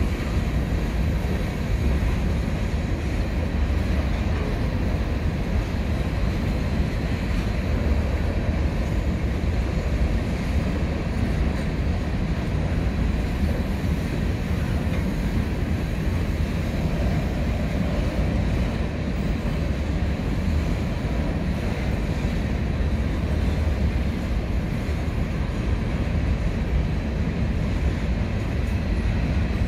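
CN freight train of covered hopper cars rolling past: a steady low rumble of wheels on rails, with no break.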